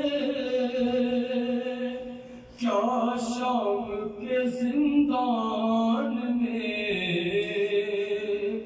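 A solo male voice sings an Urdu devotional kalam (salam) of Shia mourning, unaccompanied, in long held, ornamented notes. There is a brief breath pause about two and a half seconds in.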